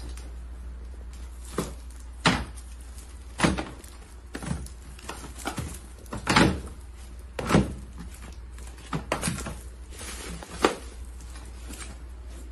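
Wrapped brick-shaped packages knocking against each other and against a plastic crate as they are set down and stood upright in it: about ten irregular knocks and thuds.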